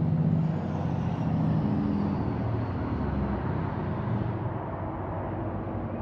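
A vehicle or machine engine running steadily as a low rumble under an even outdoor hiss, a little fainter in the second half.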